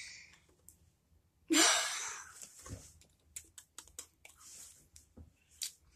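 A child chewing a mouthful of banana with small wet mouth clicks, and one loud breath about a second and a half in.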